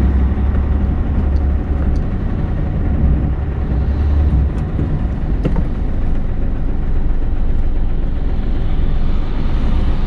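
Tractor-trailer truck's diesel engine running as the truck drives slowly, heard from inside the cab: a steady low drone that eases off about four and a half seconds in. A light click sounds once in the middle.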